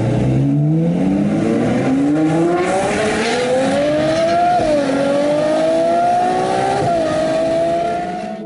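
Ferrari 812 Superfast's 6.5-litre V12 with a Novitec straight-piped exhaust accelerating hard, its pitch climbing steadily through the revs. Two quick drops in pitch, past halfway and near the end, are upshifts, each followed by the engine pulling up again.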